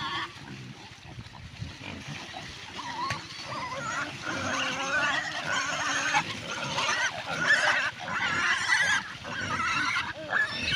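Small pigs squealing, a run of short, wavering high-pitched calls that grows busier and louder from about four seconds in.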